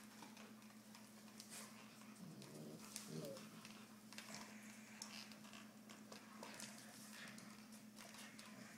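Faint clicking and scuffling of Siberian Husky claws and paws on a hard floor as an adult dog and a puppy play-wrestle. A brief low vocal sound from one of the dogs comes between two and three seconds in.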